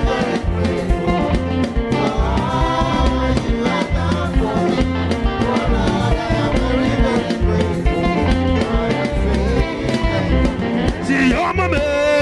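Live gospel praise band playing with a steady beat and guitar, with singing voices over it, louder near the end.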